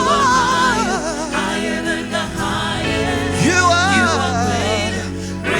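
Live gospel worship music: singing voices drawing out long, wavering, sliding notes without clear words over steady held accompaniment chords.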